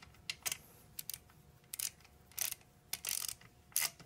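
Ratcheting wrench clicking in short, irregular runs while it runs a threaded plug into the aluminum case of a 42RE automatic transmission, tightening it until it stops.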